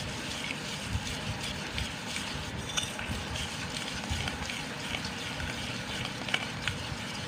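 Metal spoon stirring a gritty paste of instant coffee, sugar and chocolate powder with a little water in a steel bowl: a steady scraping and rasping, with a light click of spoon on bowl now and then.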